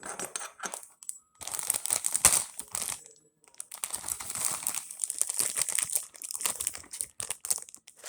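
Packaging bag that fidget toys came in, crinkling as it is handled and opened out, in three stretches with short pauses about a second in and a little after three seconds.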